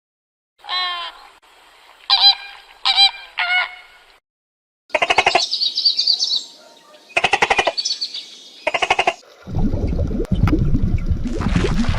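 An animal calling repeatedly: a few short calls, then three longer, raspy calls. A loud, steady rushing noise comes in near the end.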